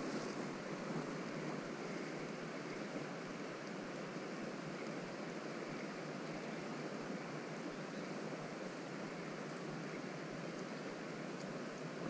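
Steady, quiet rush of flowing creek water.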